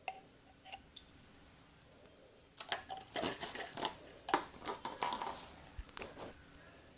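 Small plastic containers and slime-making items being handled: a couple of sharp clicks near the start, then a few seconds of quick clicking, tapping and crinkling.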